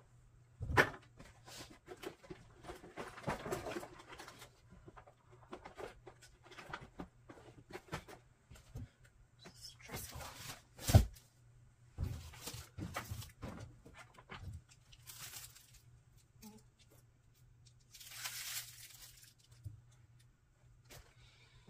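Things being handled and moved about in a small room: scattered knocks and thumps with several bursts of rustling, the sharpest knock about eleven seconds in, over a low steady hum.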